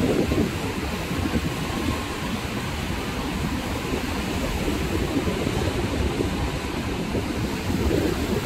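Surf breaking and washing up on a sandy beach, a steady rushing noise mixed with wind buffeting the microphone as a low rumble.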